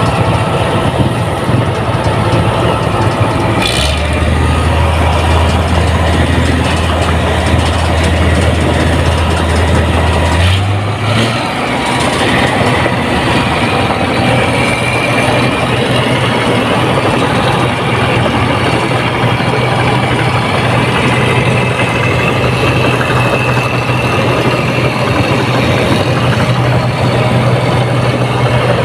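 Rice combine harvester's diesel engine running steadily. Its low hum changes pitch about four seconds in and again about eleven seconds in.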